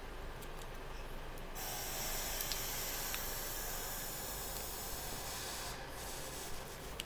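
Plastic chocolate-bar wrapper rustling in the hand close to the microphone, a steady hissy rustle with a few small clicks that starts about a second and a half in and stops near six seconds.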